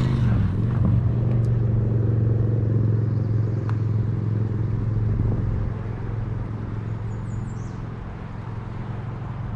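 A vehicle engine running with a steady low hum, growing quieter about six seconds in.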